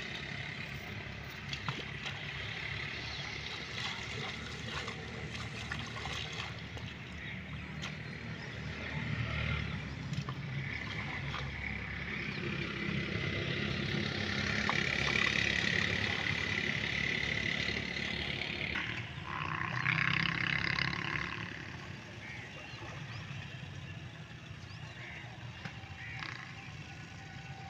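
Spade scraping and splashing in wet mud, with water running through a cut in a mud field bund, over a steady low hum. A brief louder high-pitched sound comes about two-thirds of the way through.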